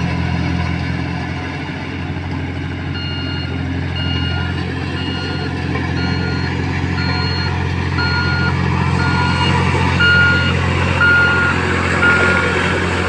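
A heavy road vehicle's engine running steadily while its reversing alarm beeps about once a second, starting about three seconds in and growing louder toward the end.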